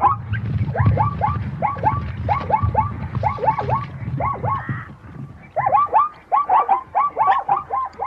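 Zebra barking: a fast run of short, yelping calls, two or three a second, with a brief break about five seconds in. A low rumble lies under the first half.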